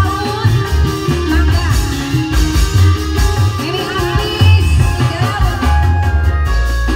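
Live dangdut pantura band amplified through loudspeakers: a woman singing into a microphone over drum kit, electric guitar, keyboard and hand drums, with a strong bass and a steady beat.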